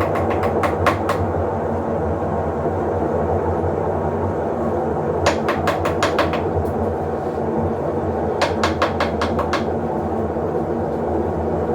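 Electrolux LTE08 top-loading washing machine running with a steady motor hum, broken by three short runs of rapid clicking, about seven clicks a second: one at the start, one about five seconds in, and one a little past eight seconds.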